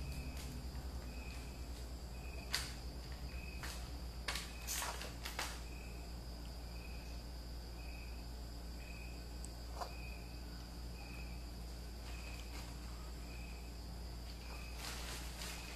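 Faint background sound: a steady low hum with a soft, high, short chirp repeating about twice a second, and a few light clicks in the first few seconds and again near the end.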